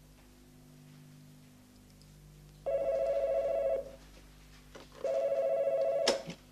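Desk telephone ringing twice, each ring about a second long, then a sharp clack as the handset is lifted off its cradle near the end.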